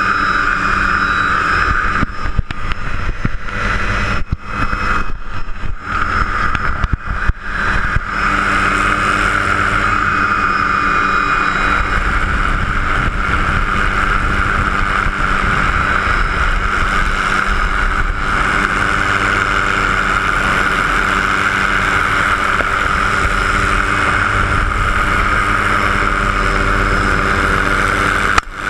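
Helicopter running, heard from inside the cabin: a loud, steady drone with a high steady whine over it. The sound drops out briefly several times in the first eight seconds.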